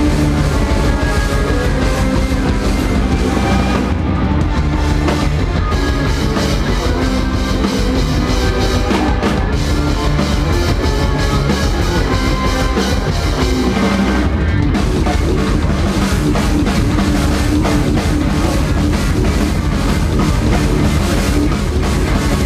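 A rock band playing live and loud: a drum kit driving a steady beat under electric guitars and bass, with no break.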